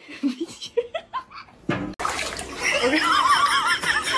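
A cat being bathed: water splashing in the tub, with a person laughing in a high, wavering voice over it. This starts about halfway through, after a few short, quiet rising sounds.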